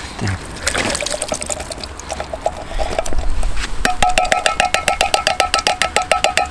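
A knife blade cutting round the lid of a tin can of sweet corn, scraping and levering against the thin metal with a ringing, metallic sound. The strokes come unevenly at first, then speed up about four seconds in to a quick, regular sawing of about eight strokes a second.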